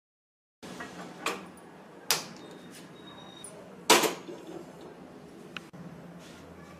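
Metal kadhai set down on a gas stove's burner grate with a loud clank about four seconds in, after two lighter knocks, over a steady low hiss.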